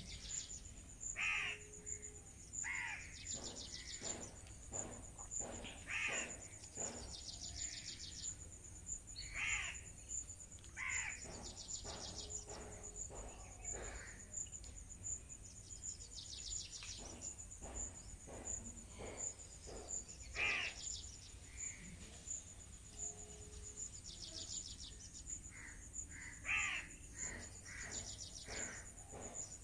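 Birds giving short harsh calls over and over, a second or less each, scattered through the whole stretch, over a steady high-pitched insect trill.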